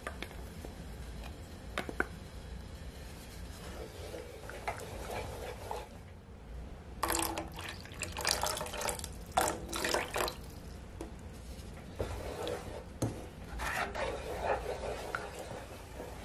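A thin tapioca-starch mixture is poured into a pot of thick peanut sauce, splashing and glugging for about three seconds from roughly seven seconds in. This is followed by a wooden spatula stirring and squelching through the sauce, with a few light knocks on the pot.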